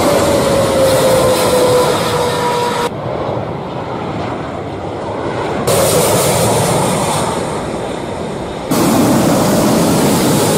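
Jet airliners passing low overhead on landing approach: loud engine roar, with a whine that falls in pitch over the first three seconds. The sound cuts abruptly three times as it jumps from one plane to the next.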